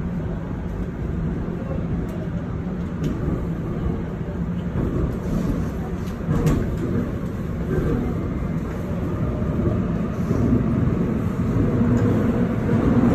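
Running noise inside a Seoul Subway Line 7 train car: a steady rumble of the moving train that grows louder near the end, where a low hum comes up.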